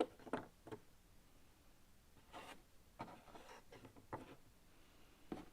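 Cardboard jigsaw puzzle pieces being handled on a table: scattered soft clicks, taps and rubs as pieces are picked up, slid and pressed into place, with quiet between.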